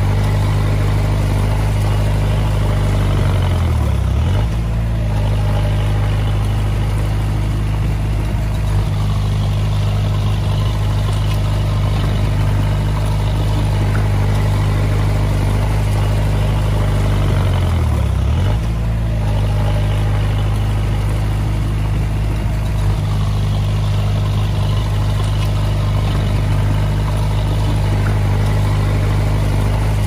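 Komatsu D20A bulldozer's diesel engine running steadily. Its pitch dips briefly and recovers twice, about four seconds in and again near eighteen seconds, as it takes load.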